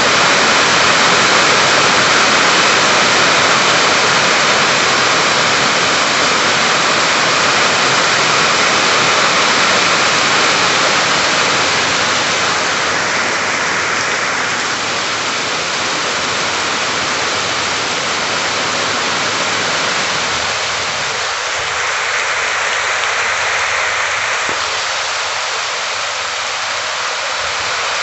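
Heavy rain falling on the open water of a large reservoir, a dense steady hiss. The deeper rumble beneath it thins out about three-quarters of the way through.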